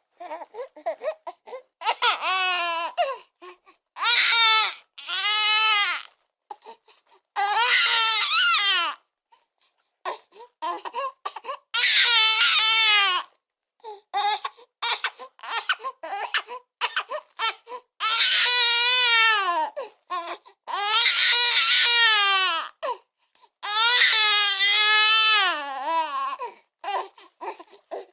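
Newborn baby crying hard in long wails of a second or two each, the pitch rising and falling, broken by short gasping breaths between cries.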